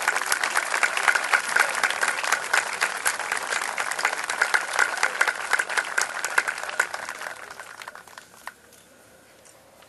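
Crowd applauding, a dense steady clapping that dies away about eight seconds in.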